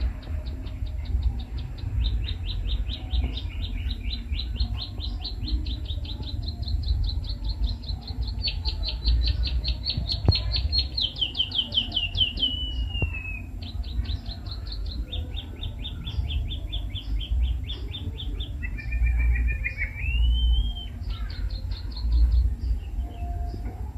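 White-headed munia (emprit kaji) singing a fast, rhythmic series of sharp ticking notes, about seven a second, in several phrases, like the 'klik-klik' call of the ciblek sawah that it imitates. A short rising whistle comes about two-thirds of the way in, over a steady low rumble.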